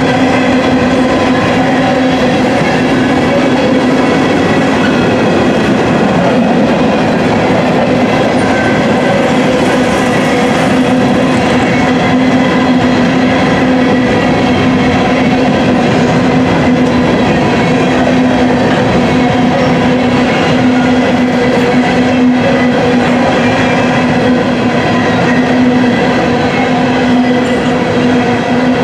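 Loaded covered hopper cars of a freight grain train rolling past at speed: a loud, steady rumble of steel wheels on the rails, with a steady hum over it.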